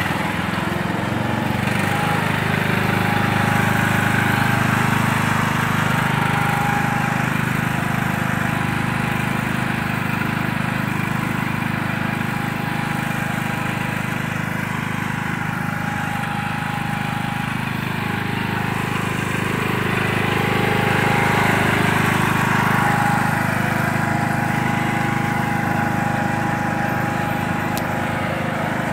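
Riding lawn mower's engine running steadily as the mower drives along.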